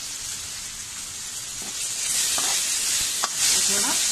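Chopped tomato sizzling in hot oil in a kadhai. The sizzle grows louder about two seconds in as it is stirred, with two spatula knocks on the pan around three seconds in.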